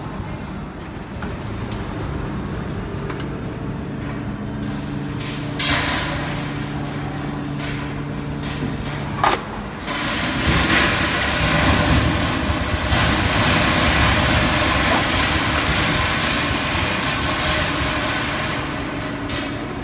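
Injection molding machine running through its cycle with a steady motor hum while the mold stays clamped. About nine seconds in there is a sharp clack, and the machine then gets louder with an even rushing noise as the mold opens on the molded plastic basket.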